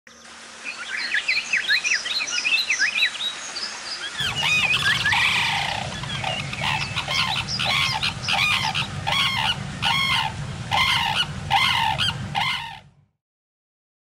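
Small birds chirping, then from about four seconds in a pair of Indian sarus cranes trumpeting their unison call, loud arched calls repeating about twice a second over a low rumble, which cut off suddenly near the end.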